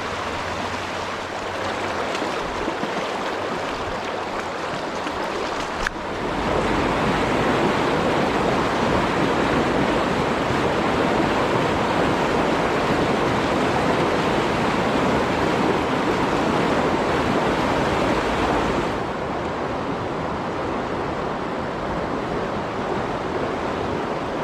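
Rushing water of a mountain stream, a steady hiss and rumble. It gets louder after a brief click about six seconds in and eases somewhat toward the end.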